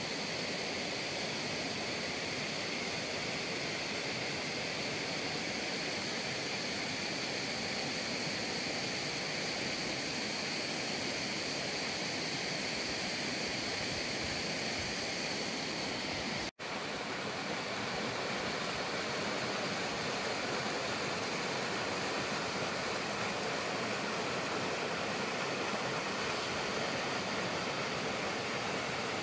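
Shallow mountain stream running over rocks and small cascades: a steady rush of water, broken by a momentary cut about halfway through.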